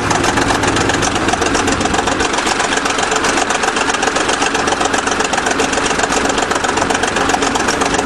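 Old 20-ton crawler dozer's engine running steadily at idle, close by, with a fast, even beat of firing strokes.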